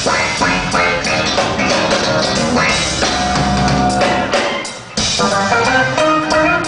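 Live band music with a drum kit. The music thins out and drops in level about four and a half seconds in, then the full band comes back in about half a second later.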